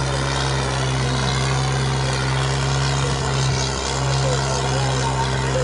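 Diesel tractor engine running steadily, an unbroken low drone.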